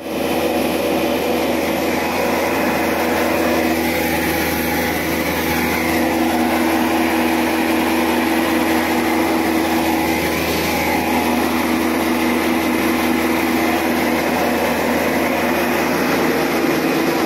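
Double-stage plastic recycling extruder plant running steadily: a loud, unchanging machine hum with a few constant tones over a wide noise.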